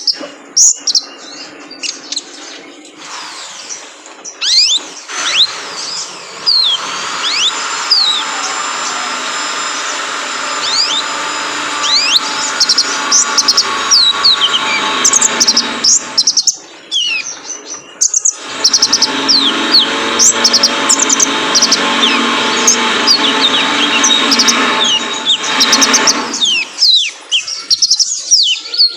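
Male kolibri ninja sunbird song: fast, high twittering with quick sweeping chirps over a dense, busy chatter. The dense layer stops for a moment twice, about two-thirds of the way in and again near the end, leaving only scattered chirps.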